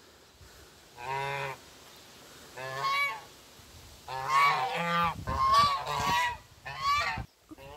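Domestic geese honking: single pitched calls about a second and about three seconds in, then several overlapping honks in quick succession.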